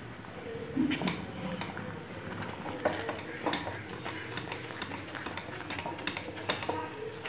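Silicone spatula stirring a thick custard halwa mixture in a stainless steel pan, with irregular scrapes and light knocks against the pan's sides and bottom, coming more often from about three seconds in.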